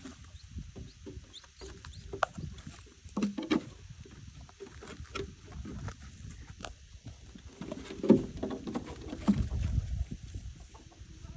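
Peafowl pecking at treats: a scatter of quick sharp taps, with a few soft low clucks, the loudest about three and eight seconds in.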